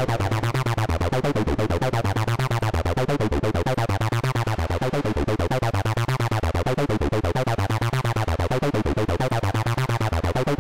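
Acid techno lead from the Serum software synthesizer playing a fast, steady sequence of short notes that hop between a few low pitches. Its filter is swept by an LFO that is itself modulated once per bar, and the sound runs through Serum's distortion with a touch of reverb.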